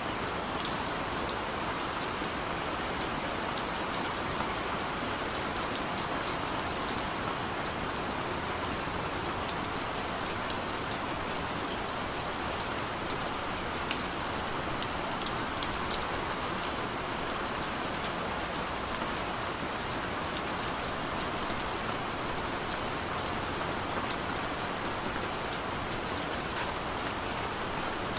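Steady rain falling, a constant hiss with many small drop ticks scattered through it.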